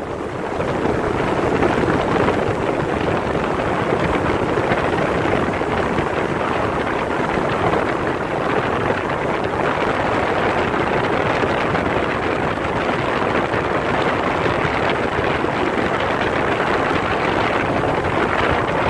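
Steady rush of a motorboat under way, its engine noise mixed with wind and water, with wind buffeting the microphone. It swells over about the first second, then holds steady.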